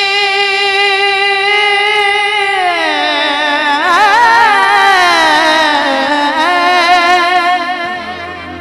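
A singer in a Hindi-Urdu song holds a long note with vibrato, then winds down in pitch through an ornamented run and settles on another held note, growing quieter near the end.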